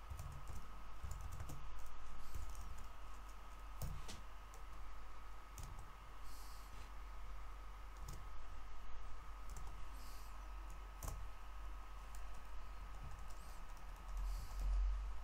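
Typing on a computer keyboard: irregular keystrokes with short pauses between bursts, over a faint steady hum.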